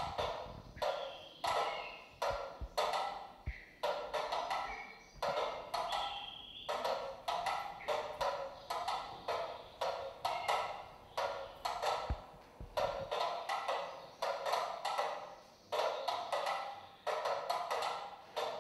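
Several mechanical pyramid metronomes ticking out of step with one another, making a dense, uneven run of overlapping wooden clicks.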